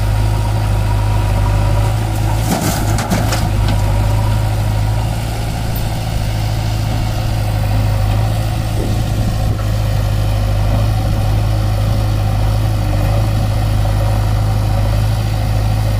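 Diesel engines of a Mahindra 575 DI tractor and a JCB 3DX backhoe loader idling steadily with a low drone, with a brief run of sharp metallic knocks about three seconds in.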